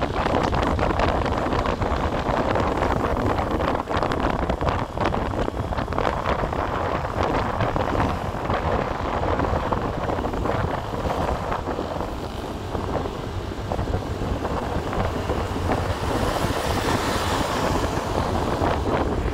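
Wind rushing and buffeting over the microphone of a moving motorcycle, over a steady rumble of the bike and road. A brighter hiss swells near the end.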